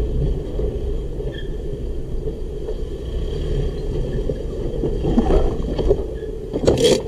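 Car engine and cabin rumble picked up by a dashcam microphone, steady and low, with a few short knocks late on and one louder thump just before the end.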